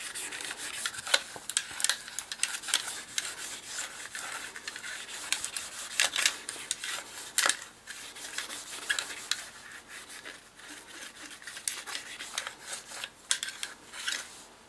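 A steel cleaning rod with a solvent-soaked cloth patch scrubbed back and forth through the bore of a Ramset powder-actuated nail gun's barrel housing. It makes irregular scraping and rubbing strokes, with occasional sharp clicks of the rod against the metal.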